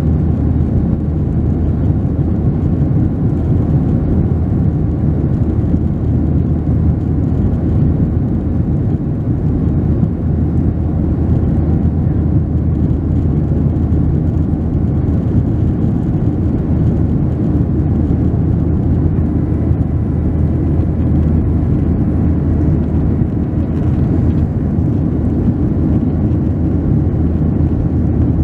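Cabin noise aboard a Boeing 737-800 climbing after takeoff: its CFM56-7B engines at climb power and the air rushing past the fuselage make a steady low drone at an even level.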